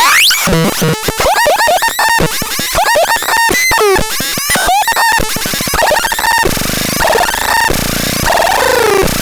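ABSURDON X1 'BAX BOX' electronic noise box making glitchy electronic noise: fast chirping pitch sweeps and rapid stuttering tones, which turn into a denser, buzzier drone about two-thirds of the way through.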